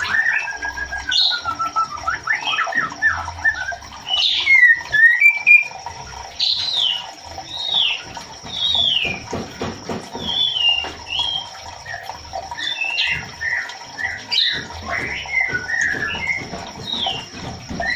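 Female white-rumped shama (murai batu) calling for a male: a continuous run of short, slurred whistled notes, many of them falling in pitch, given one after another with brief gaps.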